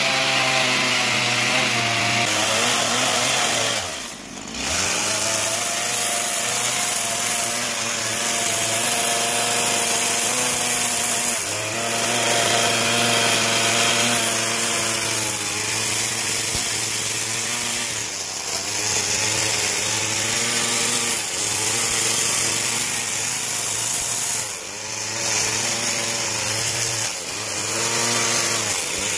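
Chainsaw running and carving into a wooden figure, its pitch sagging and rising again and again as the bar bites into the wood and is eased off. The throttle is let off briefly about four seconds in and again near 25 seconds.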